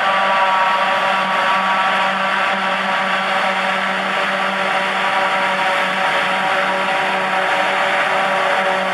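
John Deere self-propelled forage harvester working in grass silage: engine running steadily under load with a constant whine from the chopping and blowing machinery as it picks up the swath and blows it into the trailer alongside.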